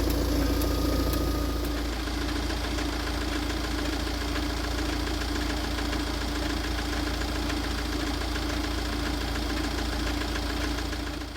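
Tata Safari Storme's four-cylinder diesel engine idling steadily with a fast, even knocking noise. The knock is the 'strange engine noise' put down to a failing crankshaft damper pulley.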